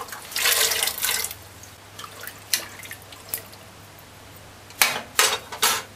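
Diced food sliding off a bowl and splashing into water in an aluminium pressure cooker pot for about a second, followed by a few light clicks. Near the end, several sharp clatters of a spoon against the pot.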